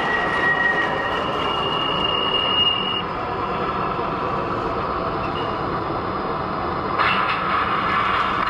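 MTH O-scale model subway train running on curved three-rail track: a steady rumbling clatter of wheels and motor, with a thin high wheel squeal in the first second and another about two to three seconds in. About seven seconds in the clatter turns louder and harsher.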